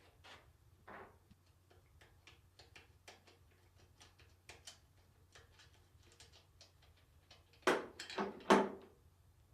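Light, irregular metallic clicks of hand tools working on a transmission case while the extension-housing fasteners are being removed, then three louder metal clanks near the end.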